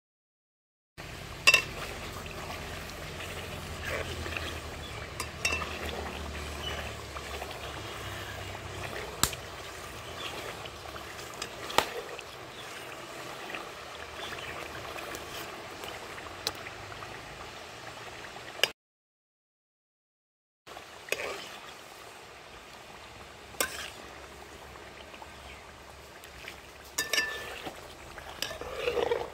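Coconut oil with herbs bubbling in a pan as it is heated, with sharp clinks every few seconds, the loudest about a second and a half in. The sound drops out twice at edits.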